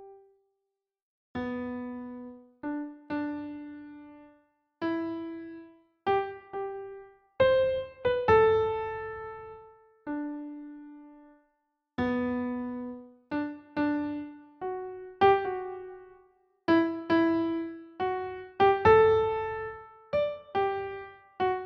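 Slow, gentle piano-like keyboard melody played one note at a time. Each note is struck and left to fade, with a few short silent pauses between phrases.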